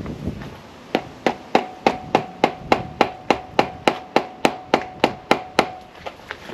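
Hammer striking metal in a steady run of about seventeen blows, about three a second, each with a ringing metallic note. It is an attempt to shock loose a rusted nut that has been heated and soaked in WD-40 and is still stuck.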